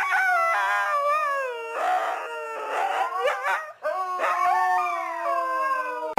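A dog howling in long, wavering notes that slide downward, with a short break about four seconds in.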